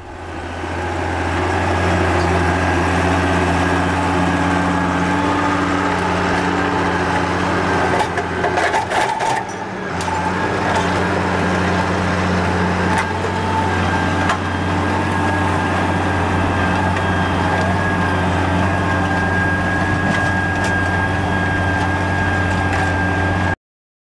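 Farm tractor's diesel engine running steadily under load as it pulls a plough through the soil, its note holding even. The sound dips briefly with a few knocks about nine seconds in, and cuts off suddenly near the end.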